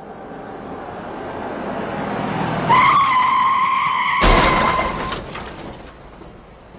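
A car approaches, growing louder, then its tyres screech in one steady squeal and it crashes with shattering glass about four seconds in; the crash noise dies away.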